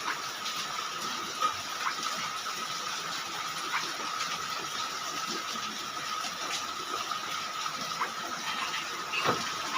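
A machine running steadily, with a continuous rushing noise, a steady high tone and occasional light clicks.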